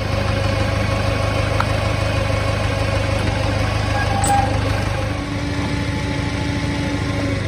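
Farmall Cub's four-cylinder engine idling steadily. About five seconds in its note shifts slightly.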